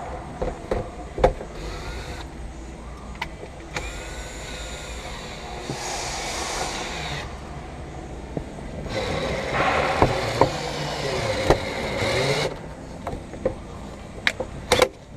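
Windshield cut-out tool working through the urethane bead that bonds a bulletproof windshield: scattered sharp clicks, then two stretches of rough, squeaky scraping a few seconds each, the second the loudest.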